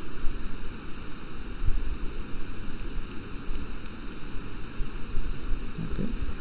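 Steady hiss with a low rumble underneath: background noise from a recording microphone, with no speech.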